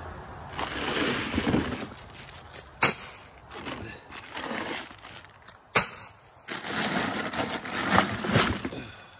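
Plastic bags crinkling and rustling in bursts as they are grabbed and lifted out of a cooler, with two sharp snaps about three seconds apart.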